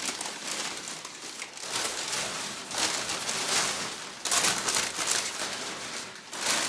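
Packaging crinkling and rustling as it is handled, in several louder spells of a second or so.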